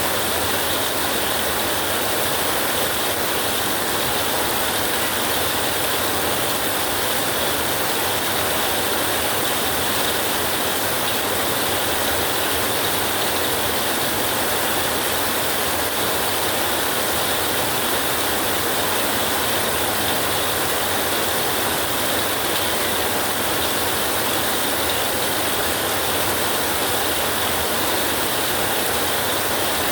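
Steady rain falling, an even hiss with no change in level and no thunder.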